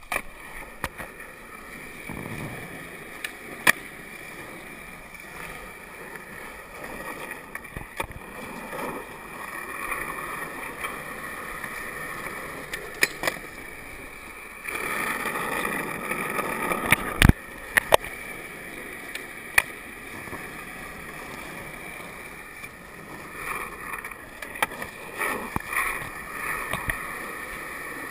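Skateboard wheels rolling over rough concrete, with several sharp clacks of the board popping and landing.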